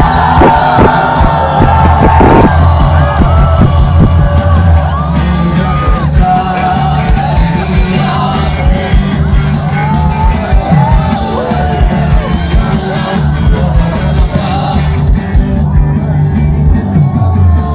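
A live pop-rock band plays with a sung lead vocal over strong bass and drums, and the crowd yells and whoops.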